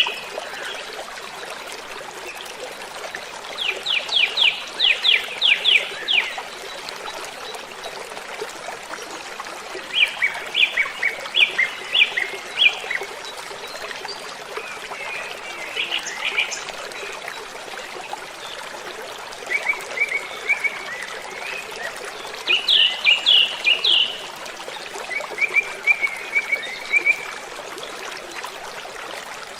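Waterfall rushing steadily, with birds singing over it: short phrases of quick repeated high notes every few seconds.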